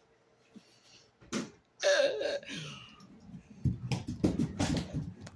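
A child's short wordless cry, then an irregular run of light knocks and clatters, like toys or feet banging about a room.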